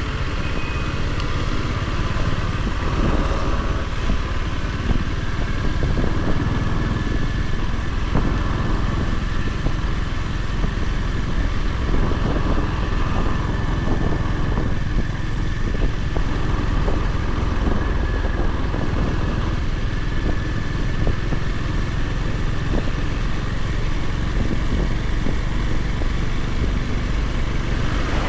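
Honda GB350's air-cooled single-cylinder engine running steadily under way, a continuous low thumping with no big revs up or down.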